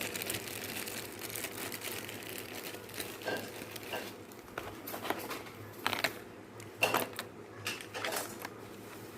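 Scattered light clicks and plastic rustling as a walkie-talkie earpiece headset and its packaging are handled.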